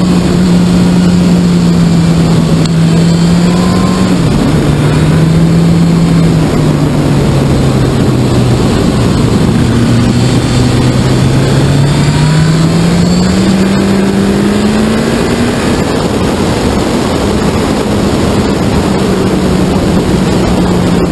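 MV Agusta Brutale 1090 R inline-four engine heard from on board while riding, its note stepping down about four seconds in, then climbing steadily as the bike accelerates before easing off again. Wind and road noise rush underneath.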